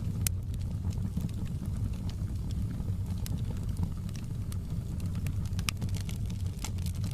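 Wood fire burning in a fireplace: a steady low rumble of the flames with irregular sharp crackles and pops, a louder pop just after the start and another near the end.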